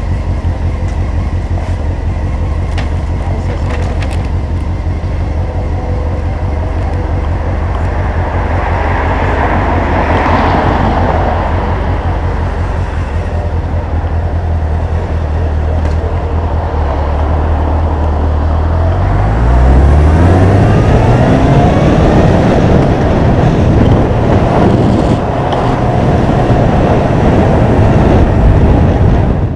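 Honda CBF motorcycle engine running steadily at low revs, then rising in pitch about twenty seconds in as it pulls away, followed by louder riding and road noise.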